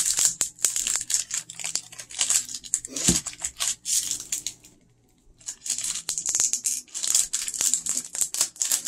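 Candy bar wrapper crinkling in the hands as it is worked open, in a dense run of crackles with a short pause about five seconds in.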